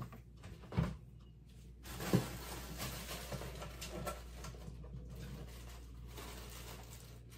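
A refrigerator door is pulled open with a thud about two seconds in, followed by rummaging and the clatter of food containers being taken from the shelves.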